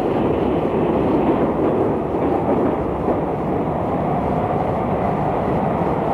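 A train running on the rails: a steady rumble, with a faint whine that rises slightly over the second half.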